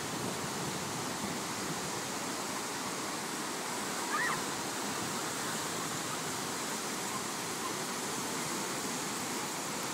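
Steady rush of ocean surf, with one brief high-pitched call about four seconds in.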